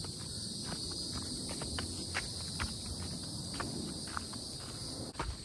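Footsteps on a dirt trail, an uneven tread about every half second, over a steady high drone of insects.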